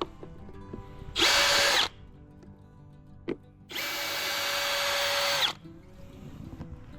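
Milwaukee cordless drill/driver with a T25 bit backing out an old deck screw: a short run, a click, then a longer run of the motor whining.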